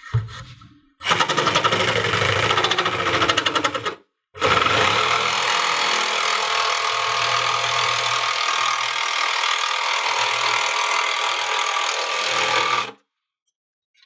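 Milwaukee M18 cordless jigsaw cutting through a bathtub deck, the blade running steadily. It cuts for about three seconds, stops briefly, then cuts steadily again for about nine seconds and stops near the end.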